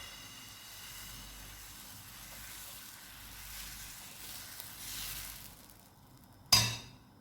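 Crepe batter sizzling in a hot pan, a steady hiss that dies away about six seconds in. A single sharp knock, the loudest sound, comes just after.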